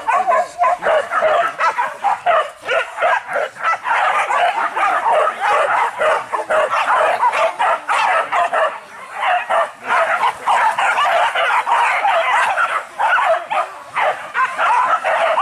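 A pack of hunting dogs barking and yelping all at once, with no break.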